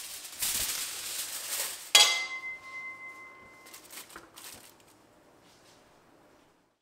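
Aluminium foil crinkling as it is pressed over the rim of a cooking pot, then the pot's lid set down on top with a sharp clank that rings for nearly two seconds, followed by a few light knocks as the lid is settled.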